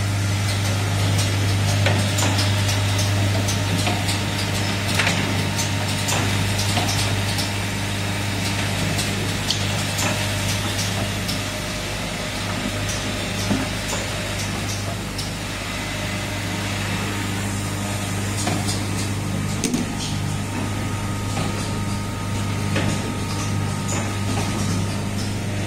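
Automated switch-part assembly machine running: a steady low hum under a continuous hiss, with irregular sharp clicks and clacks from its mechanisms.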